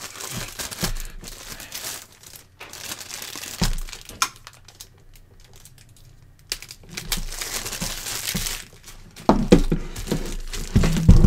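Thin plastic bag wrapping crinkling and tape being peeled off by hand, stopping for a couple of seconds in the middle, with a few sharp knocks near the end.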